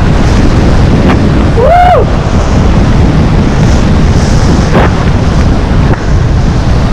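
Heavy wind buffeting the microphone, a loud, steady rumble, as the skier moves downhill. About two seconds in, a short pitched sound rises and falls, like a brief call or whoop.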